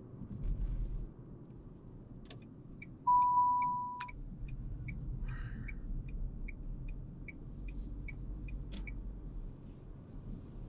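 Inside a Dacia Sandero Stepway's cabin: a loud one-second electronic beep, then the turn-signal indicator ticking about two and a half times a second for about six seconds, over low engine and road noise.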